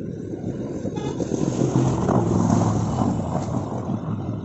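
Auto-rickshaw driving through floodwater past the microphone: its small engine runs under the rush and splash of the water it pushes aside. The sound swells about a second in, is loudest around the middle, then eases off as it passes.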